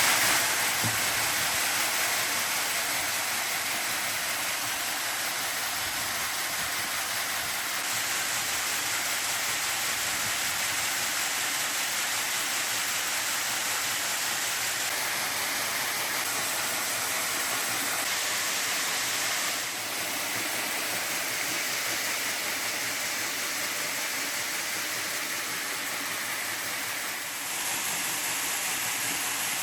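Steady rushing hiss of woodworking machinery running in a bead workshop, with no distinct knocks or tones and slight shifts in tone a few times.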